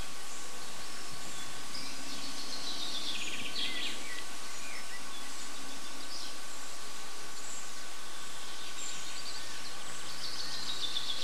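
A small songbird singing short chirping and trilled phrases, once a couple of seconds in and again near the end, over a steady background hiss.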